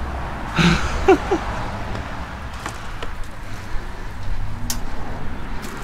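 A few light, separate metallic clicks from hands handling the mini bike's drive chain and frame, over a steady low rumble, with a brief murmur of voice about a second in.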